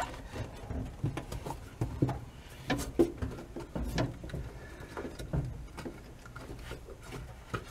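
Irregular small knocks, clicks and rubbing as a rubber boot is worked down over a steel parking brake lever and pressed against the floor pan; the boot is stiff and does not want to go down into place.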